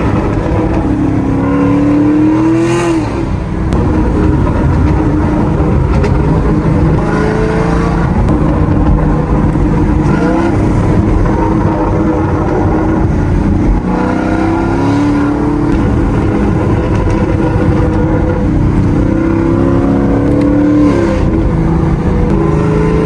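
Chevrolet Camaro 2SS V8 engine pulling under acceleration while driving, its pitch climbing and then dropping at gear changes several times.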